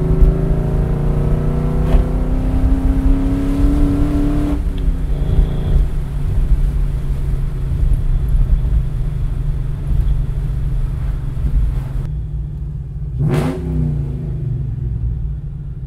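2004 Mustang GT's 4.6-litre two-valve V8 through a full aftermarket exhaust, heard from inside the cabin: it pulls hard with its pitch rising for about four seconds, then the revs drop and it runs on steadily at lower revs, quieter toward the end.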